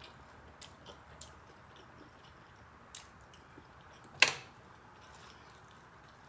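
Close-up sounds of a person eating crab: soft chewing and scattered small clicks, with one sharp, much louder click about four seconds in.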